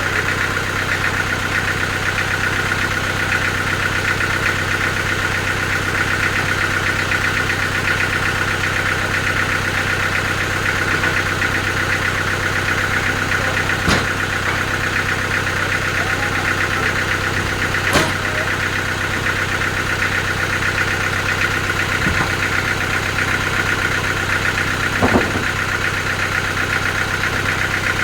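Sawmill machinery running steadily: a constant engine-like hum with a high, steady whine over it. Three sharp knocks stand out, about halfway through, about two-thirds through and near the end.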